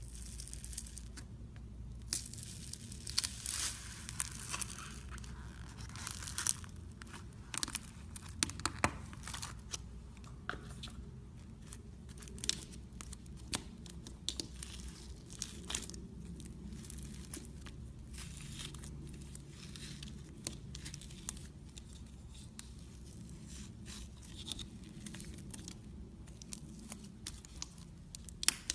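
Slime being handled, stretched and squished, with sticky crackling and many sharp popping clicks, busiest in the first third.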